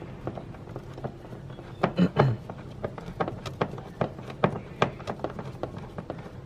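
Irregular clicks and taps of a Phillips screwdriver working a hose clamp loose on a car's air intake hose, with a louder clatter about two seconds in.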